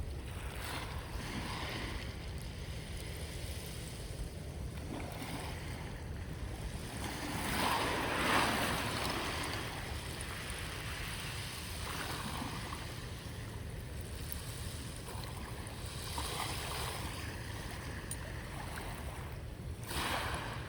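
Sea waves washing onto the shore in repeated swells, the largest about eight seconds in, over a steady low rumble of wind on the microphone.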